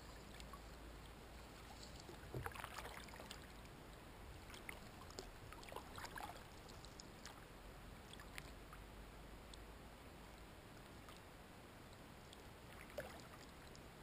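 Kayak paddle strokes in calm water: faint splashes and drips, grouped a couple of seconds in and again around five to six seconds, with one last drip near the end.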